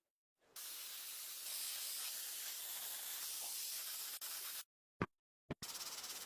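A steady spraying hiss that cuts off abruptly after about four seconds. A sharp short sound follows, then a second, pulsing stretch of the same hiss.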